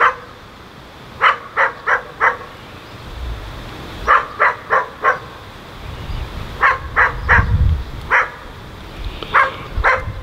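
A dog barking repeatedly in quick runs of three or four barks, with a low rumble behind.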